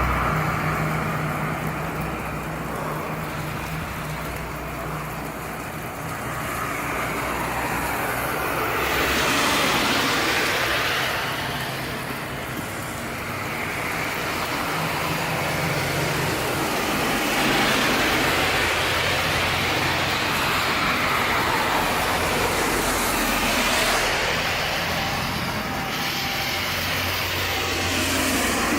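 Road traffic in the rain: vehicles passing with a hiss that swells and fades several times over a steady low hum.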